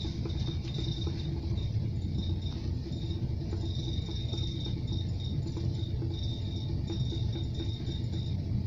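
Cabin running noise of a suburban electric train in motion: a steady low rumble with small rattles and clicks, and a thin high whine that keeps coming and going.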